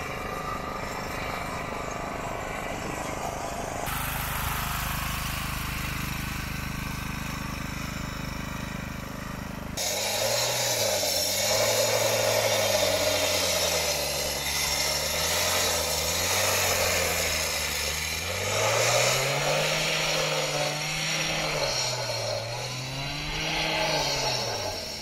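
A heavy diesel engine on a construction site. It runs at a steady note at first, then from about ten seconds in grows louder and its pitch rises and falls again and again as it works under changing load.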